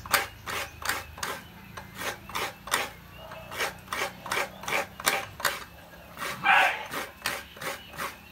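Half a coconut scraped by hand against the serrated metal blade of a coconut grater (kudkuran), a run of short rasping strokes about two to three a second as the white meat is shredded. A brief louder sound stands out about six and a half seconds in.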